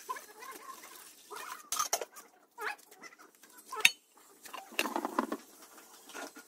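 Chickens clucking on and off, with scattered sharp clicks; the loudest sound is a single sharp click about four seconds in.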